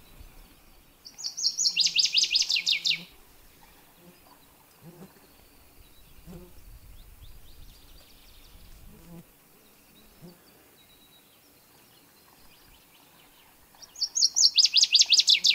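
A songbird sings a fast trill of rapid notes, twice: about a second in and again near the end. Between the songs come a few faint, irregular knocks, a moose's hooves clopping along the edge of the water.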